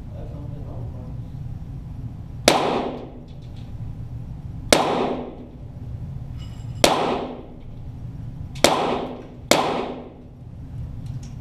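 .22 Walther GSP target pistol shots, five in all, each with a ringing echo tail. They come about two seconds apart, the last two less than a second apart.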